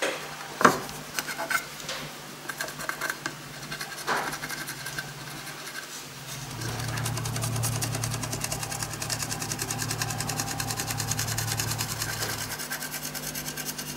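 A crayon rubbed quickly back and forth into the engraved lines of a carbon fibre sheet, making a fast, rhythmic scratching. It starts with a few separate clicks, and a steady low hum runs under the scratching from about halfway to near the end.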